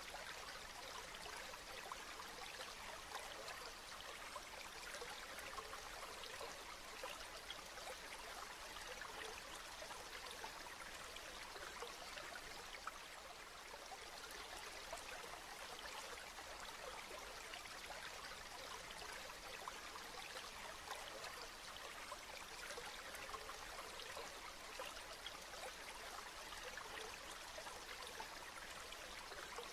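Steady rain falling: an even, unbroken hiss flecked with countless small drop ticks.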